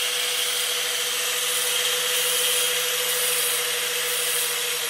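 Handheld angle grinder running at full speed with a steady whine while the end of a piston ring is held against its wheel to file the ring gap. Near the end it is switched off and the whine starts to drop in pitch as it winds down.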